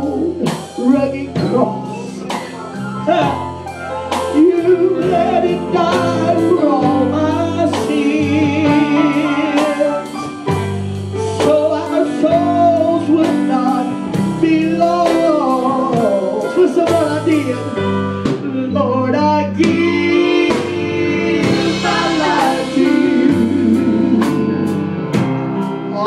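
Live gospel song: several singers at microphones with an electric guitar band and a steady beat.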